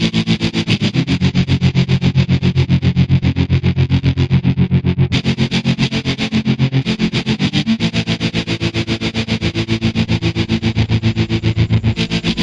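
Distorted electric guitar chords through an effects unit, cut into a fast, even pulse, the chord changing a few times.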